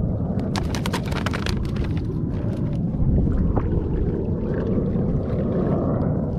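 Steady wind buffeting the microphone over water sloshing against a sit-on-top kayak, with a quick run of sharp clicks and taps about half a second in and a few more around three seconds.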